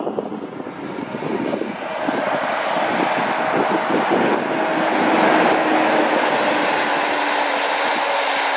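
Volvo FH articulated lorry's diesel engine droning steadily as the truck and its multi-axle trailer drive past, with tyre noise on a wet road. The sound swells over the first couple of seconds and is loudest about halfway through as the lorry goes by.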